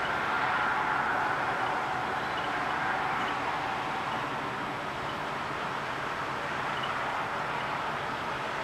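Steady distant city and traffic noise, a broad hiss that is a little louder in the first second or two and then eases slightly.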